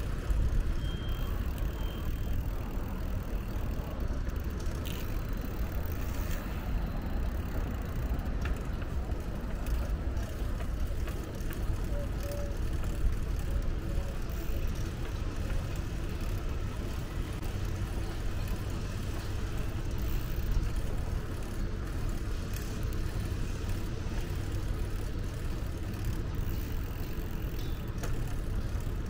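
Steady low rumble of road traffic and moving air heard while riding a bicycle, with a few faint clicks.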